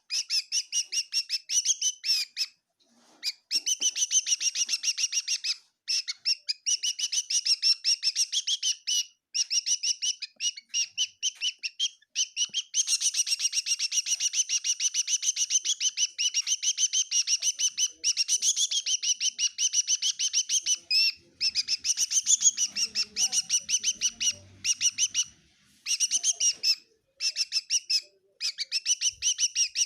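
A small bird chirping in fast, even runs of high chirps, many to the second, broken by short pauses every few seconds.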